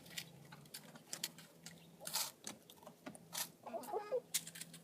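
Chickens clucking, with one brief wavering call about three-quarters of the way in, over scattered short clicks and scratches.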